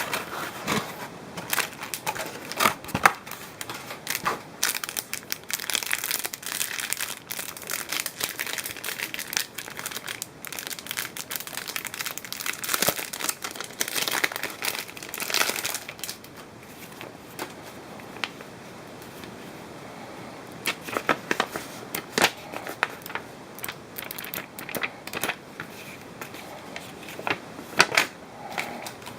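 Crinkling and rustling, as of wrapping or plastic being handled, with many sharp clicks and knocks; busy through the first half, then quieter with scattered clicks.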